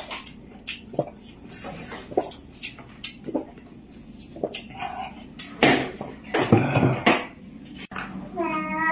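Chopsticks clicking and scraping against a stainless-steel bowl during eating, in scattered light knocks, with a louder noisy stretch in the middle. A voice begins near the end.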